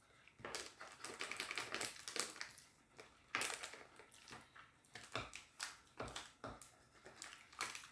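Plastic snack wrapper crinkling: irregular crisp clicks and crackles coming in several short spells, fairly faint.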